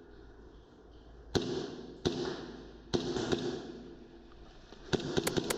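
Airsoft guns firing: a few single shots spaced half a second to a second apart, then a quick string of about four shots near the end, each crack followed by a short echo.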